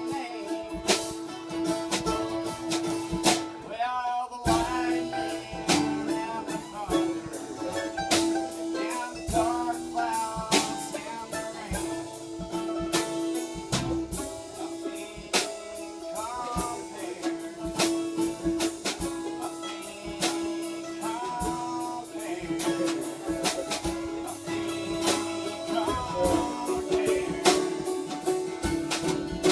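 Live bluegrass band playing: bowed fiddle, picked mandolin, strummed acoustic guitar and a drum kit keeping time. A long held note runs under a melody that slides between notes, with frequent drum hits.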